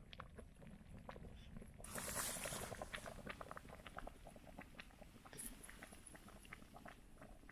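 Faint crackling of a small wood campfire under a cooking pot, many small irregular pops and ticks, with a couple of brief rustles in dry leaves, about two seconds in and again near five and a half seconds.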